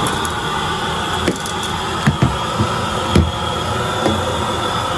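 Shark vacuum cleaner running on carpet with a steady rush of suction, and about half a dozen sharp crunches and clicks as bits of debris are sucked up the wand.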